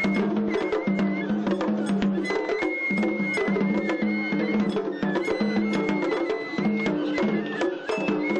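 Japanese festival hayashi music. A high flute plays held notes in phrases over dense, rapid drum and clapper strokes.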